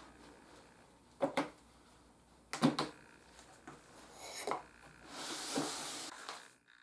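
Wooden knocks and clunks as a wooden sled jig and workpiece are handled on a router table: two quick knocks, a louder clatter, a lighter knock, then a scraping slide lasting about a second and a half.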